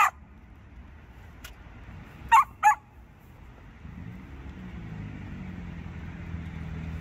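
Samoyed puppy barking: one bark at the start, then two quick barks about two and a half seconds in. From about four seconds a steady low hum of a car engine running sets in.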